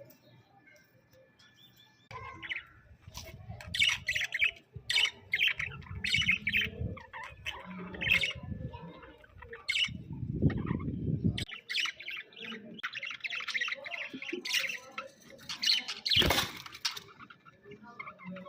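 Pet budgerigars chirping and squawking in a busy string of short, high calls that starts about two seconds in. A low rumble runs under the first half, and a single sharp knock comes near the end.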